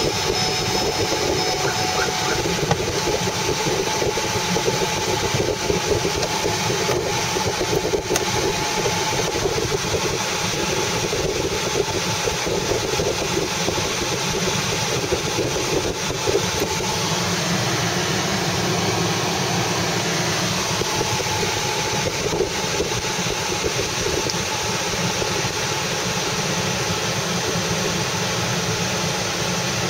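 Steady car engine and road noise heard from inside the cabin of a slowly moving car.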